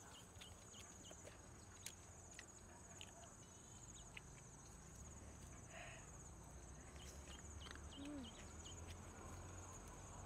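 Faint, steady, high-pitched insect trill in dry scrub, with scattered soft clicks and one short low call near the end.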